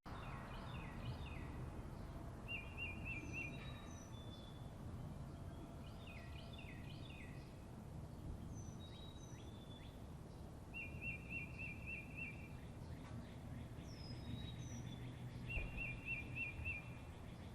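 Songbirds chirping and singing: a short, fast trill comes three times, among scattered chirps and down-slurred whistles, over a steady low background rumble.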